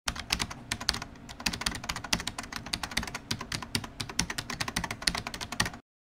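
Rapid, irregular computer-keyboard typing clicks, several keystrokes a second, stopping abruptly near the end.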